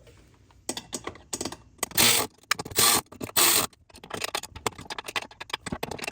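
Nuts on mud-flap mounting bolts being tightened with a hand ratchet: sharp metal clicks start about a second in, with three longer, louder stretches of ratcheting in the first half.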